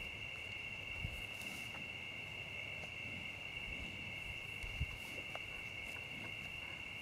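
Steady, unbroken high-pitched chorus of night insects such as crickets, with a few soft low thumps about a second in and near five seconds in.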